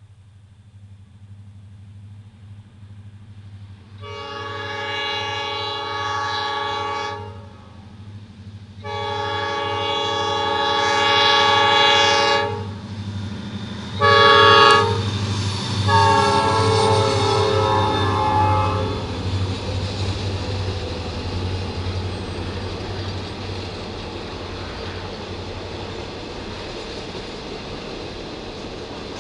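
Freight train led by diesel locomotives IC 6257 and DMIR 403 approaching and sounding its multi-chime air horn in the grade-crossing pattern: long, long, short, long. A low diesel engine rumble runs under the horn, and after the last blast the sound turns to the steady clatter of wheels on rails as the empty cars roll by.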